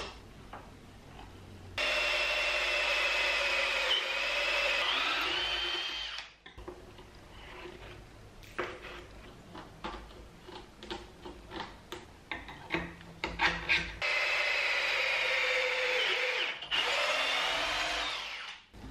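Cordless drill boring pocket holes into plywood through a pocket-hole jig: two runs of about four seconds, the first about two seconds in and the second near the end, each a steady motor whine that sags in pitch as the bit bites into the wood. Between the runs, a string of knocks and scrapes as the jig is moved along the board.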